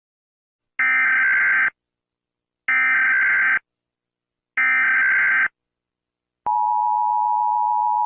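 Emergency Alert System header: three short bursts of digital data tones, each just under a second long and about two seconds apart. About six and a half seconds in, the steady two-tone attention signal begins. It marks the start of an emergency alert, here announcing an Emergency Action Notification.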